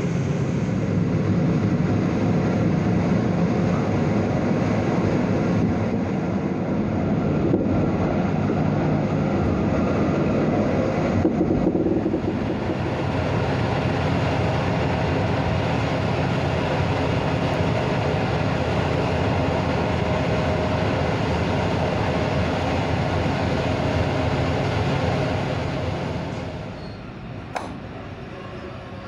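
A train running along the rails, a loud, steady running noise that drops noticeably in level about 26 seconds in.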